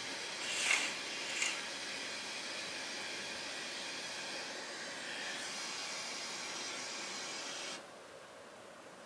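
A steady hiss with two brief louder swooshes about a second in; the hiss drops away suddenly near the end.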